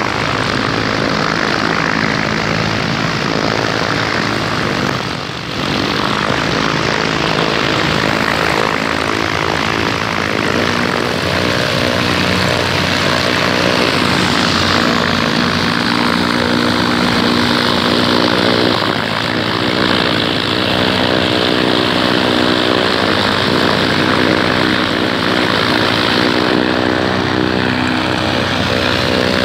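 Piston engines and propellers of several light aircraft running at taxi power, a steady drone of many engine tones, with a short dip in level about five seconds in.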